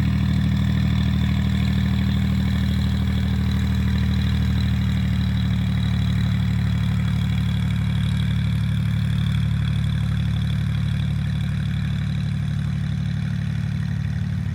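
Cessna 210L Centurion II's six-cylinder piston engine and propeller running steadily at low ground power, a deep even drone that eases off slightly near the end.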